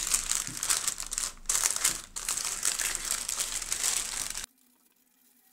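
Baking (parchment) paper crinkling and rustling as hands fold a filled paper parcel and tuck its ends underneath; the crinkling stops abruptly near the end.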